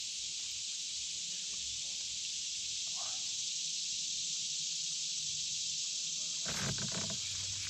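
Steady high-pitched drone of an insect chorus, with a faint short chirp about three seconds in and a brief knocking rustle near the end.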